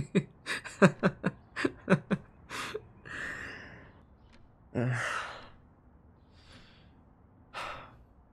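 A man's shaky breaths and sighs: a run of short voiced breaths in the first two seconds, then separate exhales, the loudest a long sigh about five seconds in. These are the nervous breaths of someone who has just confessed his feelings.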